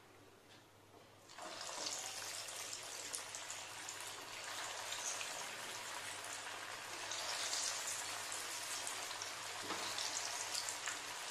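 Breadcrumb-coated corn cheese balls deep-frying in hot oil in a wok. The sizzling begins about a second and a half in, as the balls go into the oil, and goes on steadily with fine crackling.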